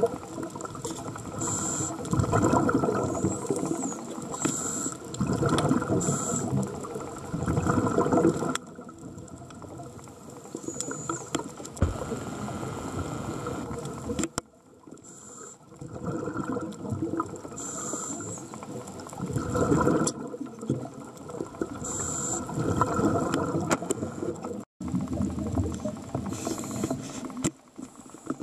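Scuba diver breathing through a regulator underwater: rushes of exhaled bubbles lasting a second or two, repeating every few seconds, with short high hisses between them and a longer quieter stretch about a third of the way in.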